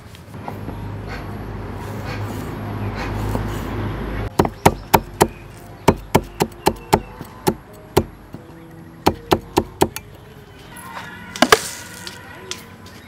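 Kitchen knife chopping red chilies on a wooden chopping board: a run of sharp, irregular chops, roughly three a second, starting about four seconds in after a low rumble. One louder knock comes near the end.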